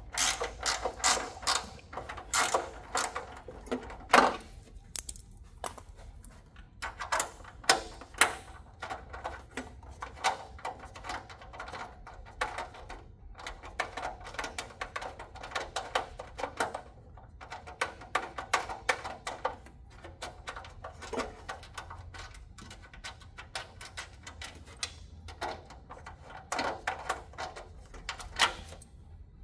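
Mini ratchet clicking in quick runs of a few seconds each, with short pauses between them, as it backs out the front yoke fasteners.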